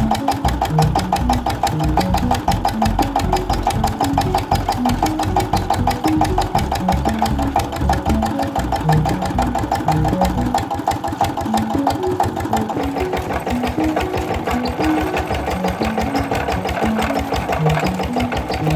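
Small single-cylinder diesel "Peter" engine running steadily under load with a fast, even chugging beat, belt-driving a sugarcane crusher.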